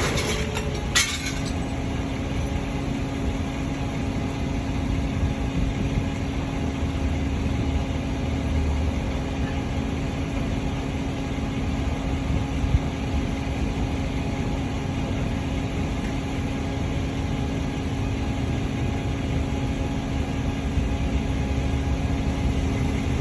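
Motor vehicle engine idling steadily with a constant hum. There is a short sharp crack about a second in.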